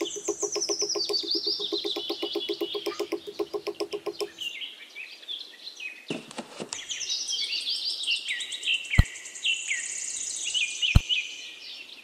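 Birds chirping and twittering, with a fast low pulsing call that stops about four seconds in. Two sharp clicks land about two seconds apart in the second half.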